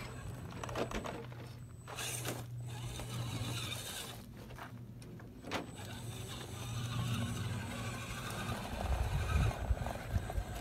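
Electric motor and geared drivetrain of an RC rock crawler whining steadily as it drives over loose gravel and climbs a dirt slope, with the tyres scrabbling on dirt and stones and a few low knocks near the end.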